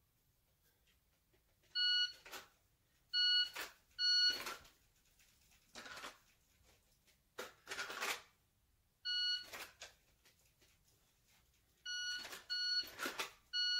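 Electronic shot-timer beeps for dry-fire drills: seven short tones in small clusters about a second apart. Scuffing and handling noise of drawing the pistol and moving on foot follows most of them.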